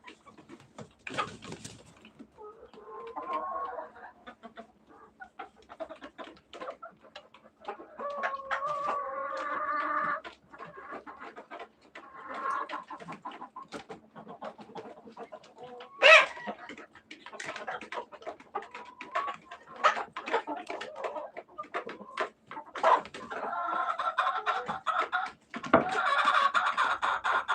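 Chickens clucking and calling over and over, with a longer drawn-out call near the end. Short knocks are scattered throughout, the sharpest about sixteen seconds in.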